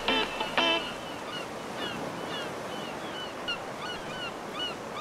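Surf washing onto a beach as a steady hiss, with birds calling in short falling chirps again and again. The last plucked notes of a song ring out in the first second.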